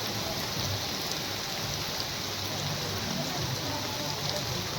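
Steady rain falling, a continuous hiss with faint scattered drop ticks.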